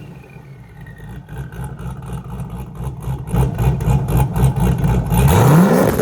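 Cammed Camaro V8 running with a choppy, evenly repeating idle that grows louder, then revving up steeply near the end. The car's exhaust is fitted with clip-on turbo whistles.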